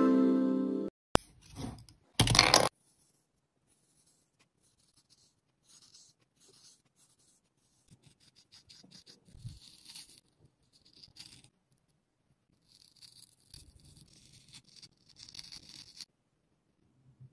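Paint-marker tip scratching and dabbing on card, in faint, scattered bursts. Before it, a harp-like alarm melody stops about a second in, and a short loud noise burst follows about two seconds in.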